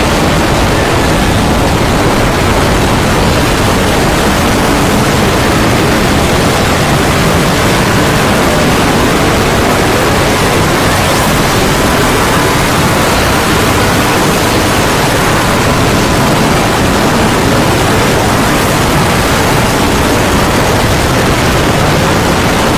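Very loud, steady, harsh noise spread evenly from low to high pitch with no breaks: a deliberately overdriven 'earrape' sound effect.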